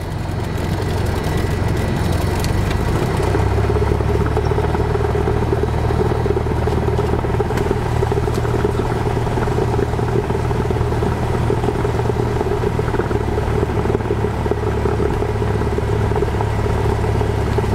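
Cessna 172's piston engine and propeller running at taxi power, heard inside the cabin as a steady low drone. It builds over the first couple of seconds, then holds even.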